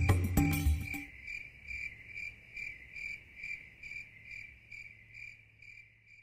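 Music stops about a second in, then a cricket chirps steadily at about two chirps a second, fading out near the end.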